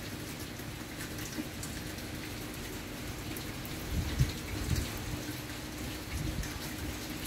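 Steady rain falling, with single drops ticking close by. There are two short low rumbles about four and five seconds in.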